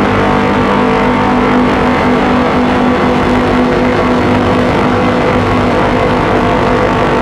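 Colossus Audio "The Hum" drone box putting out a loud, steady dark drone: several held tones over a dense, gritty noise, with added reverb.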